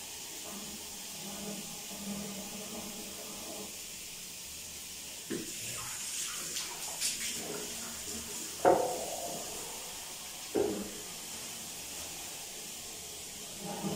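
Cleaning at a ceramic bathroom sink: a steady hiss, a cluster of short hissing bursts around six to seven seconds in, and three sharp knocks of things set down or struck against the sink, the loudest near nine seconds in.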